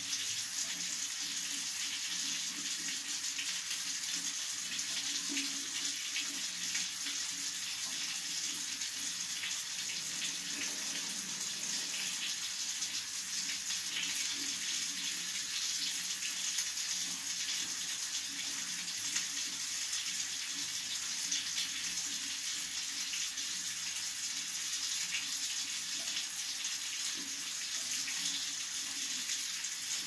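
Water running steadily from a chrome tap in a thin stream, splashing into a ceramic washbasin: an even, unbroken hiss.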